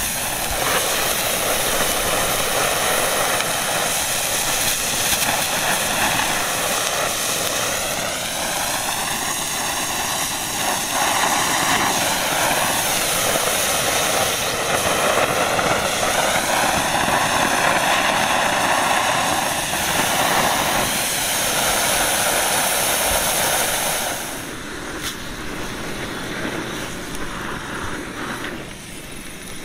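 Hand-held spark-spraying firework sticks burning with a loud, steady hiss that has a slowly sweeping, jet-like quality. The hiss drops noticeably about 24 seconds in and falls again near the end, as a ground firework burns.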